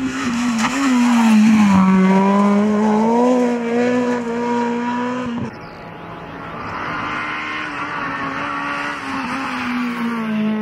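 Honda Civic rally car's engine held at high revs as it drives a stage, its pitch dipping a couple of times in the first seconds. It cuts off abruptly about halfway through and is followed by the car's engine heard again, building as it approaches.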